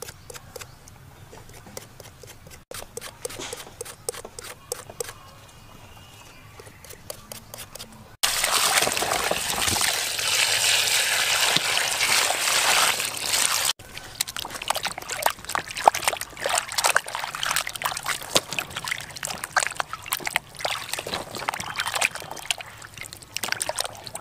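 Water pouring steadily into a plastic basin of vegetables for about five seconds, then hands sloshing and rubbing the vegetables in the water with many small irregular splashes.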